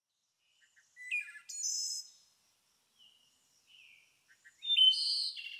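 Songbird calling in two short high-pitched bursts, one about a second in and a louder one near the end, with quiet in between.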